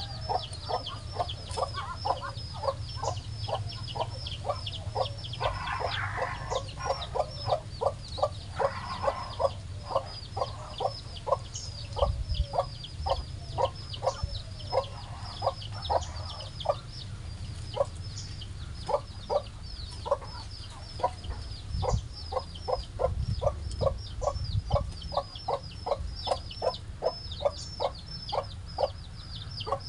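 Mother hen clucking in a steady run of short, even clucks about two a second, over a constant layer of high, falling peeps from her chicks. Two brief raspy bursts come about six and nine seconds in.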